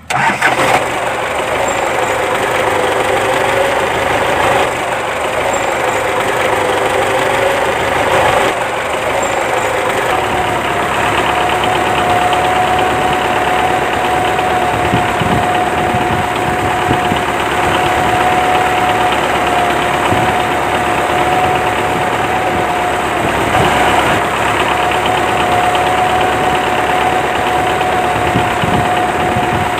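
Small electric motor of a homemade toy tractor cutting machine running with a steady whine, stepping up to a higher, steadier pitch about ten seconds in.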